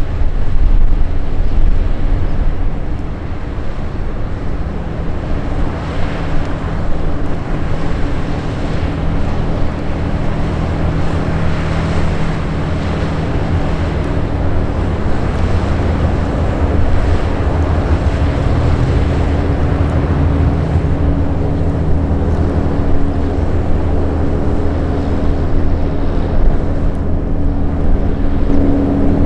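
Diesel engine of a fishing boat running steadily at cruising speed as it passes close by, a low even drone. Water rushes from the bow wave, and wind buffets the microphone, strongest in the first couple of seconds.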